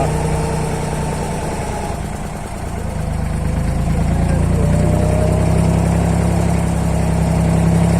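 Boat engine running with a steady low hum, getting louder about three seconds in.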